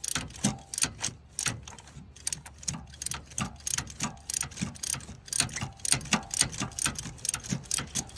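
Socket ratchet clicking in quick runs of short strokes, backing a loosened spark plug out of a tight spot in the engine bay.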